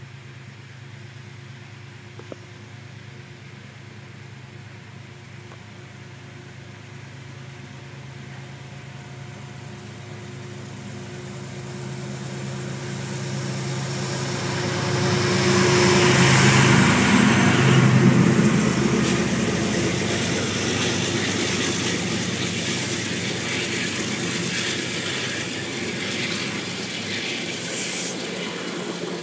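GE P32AC-DM dual-mode locomotive approaching and passing close by, its sound growing steadily louder to a peak a little past halfway, followed by the steady noise of passenger coaches rolling past.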